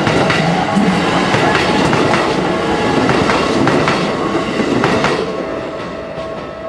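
Keikyu 1000-series six-car stainless electric train passing over a level crossing, its wheels clattering over the rail joints, the noise dropping away about five seconds in as the train clears. A level-crossing bell rings steadily throughout.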